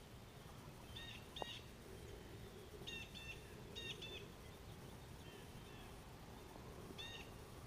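A small bird chirping faintly outdoors: short high notes, mostly in quick pairs, repeated several times over a faint steady background hiss.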